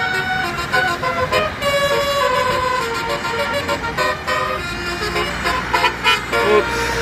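Basuri-type telolet bus horn, a multi-tone air horn, playing a melody in quick stepped notes over a steady low hum.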